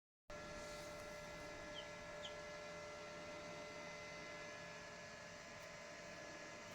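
Steady electrical hum made of several fixed tones over a faint hiss, with two faint, short, high chirps about two seconds in.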